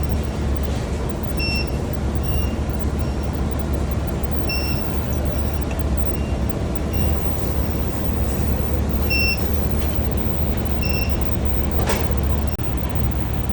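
Steady machine hum and noise of a small induction melting furnace running, with short high beeps at irregular intervals and a single sharp knock near the end.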